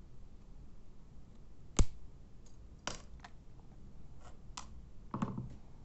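Side cutters snapping through a USB flash drive's casing with one sharp crack about two seconds in, followed by a few lighter clicks and a duller knock as the cut pieces and the tool are handled.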